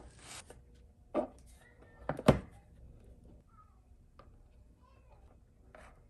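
Hard plastic power supply box and a small metal bracket being handled on a workbench: a few sharp knocks and clatters, the loudest a close pair about two seconds in, with faint clicks after.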